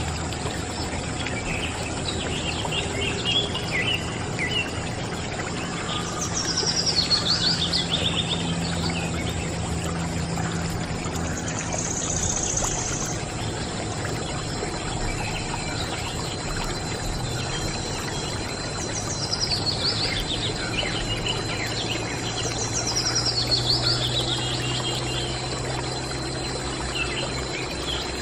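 Small homemade DC-motor water pump, run off a 9V battery, running steadily while water from its tube splashes onto toy cows. A bird sings short descending trilled phrases several times over it.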